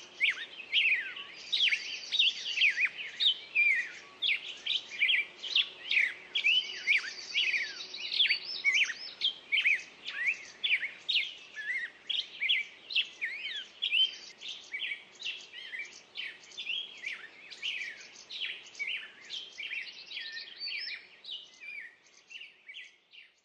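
A chorus of songbirds singing together: many short, quick chirps and trills overlapping. It fades out near the end.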